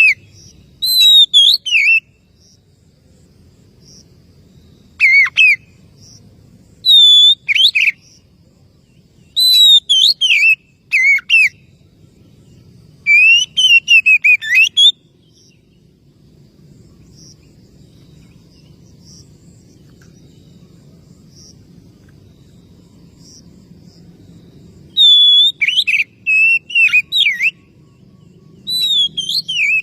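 Oriental magpie-robin (kacer) singing loud, clear whistled phrases full of quick rising and falling glides, in bursts of a second or two with short pauses and one long pause of about ten seconds in the middle. This is its challenge song, calling out a rival.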